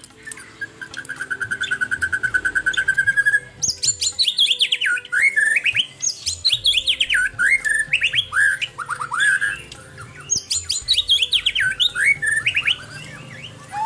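White-rumped shama (murai batu) singing: a fast, buzzy trill held on one pitch for about three seconds, then a long run of loud whistled phrases that sweep downward, with a brief pause about ten seconds in.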